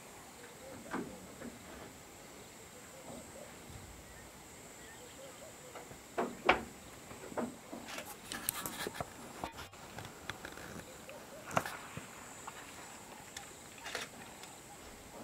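Insects droning steadily at a high pitch, with a few sharp knocks scattered through, the loudest about six and a half seconds in.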